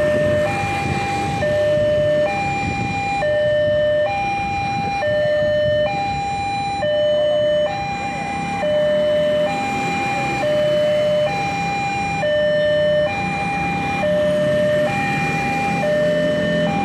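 Railway level-crossing warning alarm sounding while the barrier comes down: an electronic two-tone signal alternating steadily between a high and a low note, each held just under a second, over the steady noise of motorbikes and road traffic.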